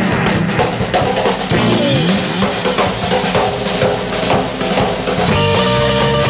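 Instrumental rock music: a drum-led passage with sliding guitar notes, then held guitar chords come in about five seconds in.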